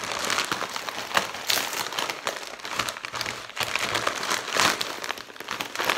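Grey plastic poly mailer bag crinkling and rustling as it is torn open by hand, a dense run of crackles.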